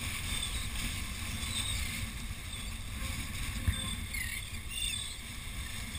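Wind noise on the microphone and surf washing against jetty rocks, a steady rumbling hiss, with one short knock about three and a half seconds in and a few faint bird calls in the second half.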